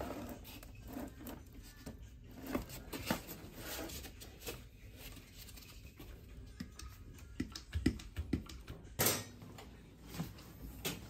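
Scattered clicks and knocks of a hand crimping tool being worked to press a lug onto a power cable, with a sharper knock about nine seconds in.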